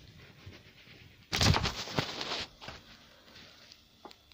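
A sudden loud clatter and rustle about a second in, lasting about a second, from hand work with a tool on a mountain bike's crank and bottom bracket; a single light click near the end.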